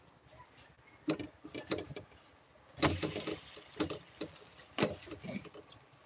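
A spatula knocking and scraping against a nonstick frying pan holding a pancake: a string of irregular knocks, with a louder clatter about three seconds in.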